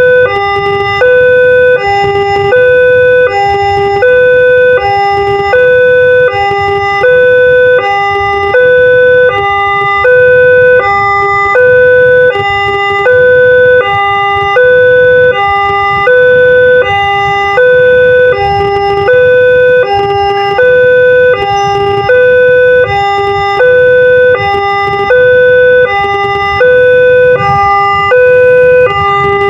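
Electronic two-tone level-crossing warning siren of the Multec type, alternating between a higher and a lower tone about once a second, on and on.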